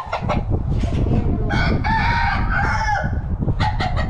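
A rooster crowing once, a long call of about a second and a half starting about a second and a half in, with short rustles and knocks around it.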